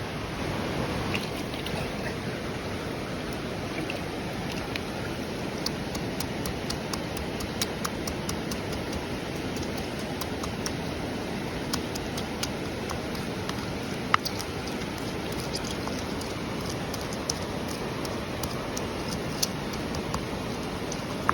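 Campfire crackling: a steady hiss with irregular sharp pops and snaps scattered through it, one pop standing out loud about two-thirds of the way through.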